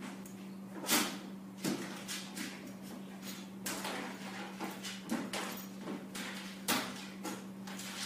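Irregular knocking and scrabbling as a small dog paws at a plastic pet carrier, the carrier rattling under it, with a steady low hum underneath.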